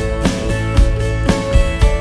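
Background music: a guitar-driven pop-country track with a steady beat of about two strikes a second.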